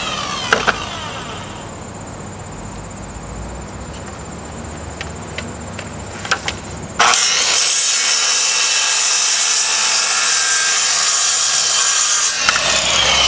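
Circular saw on a guide track: its motor winds down with a falling whine, then a few light knocks. About halfway through the saw starts abruptly and runs loud for about five seconds, cutting a thin strip of veneer off plywood.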